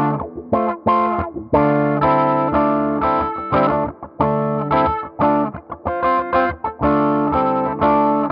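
Electric guitar played through an Electro-Harmonix Q-Tron Plus envelope filter with its gain turned up high, a phrase of picked notes and chords with a new attack every half second or so. The hot signal drives the 22-watt amp into slight breakup.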